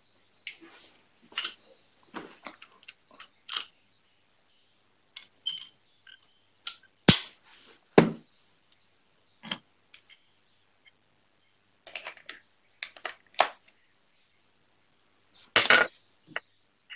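Irregular clicks, taps and knocks from objects being handled close to a phone's microphone, with two sharp knocks about seven and eight seconds in and a longer rubbing scrape near the end.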